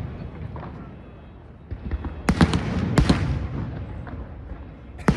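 Fireworks going off: a crackling rush builds about two seconds in, with sharp bangs a little after two and three seconds in that die away, and another sharp bang right at the end.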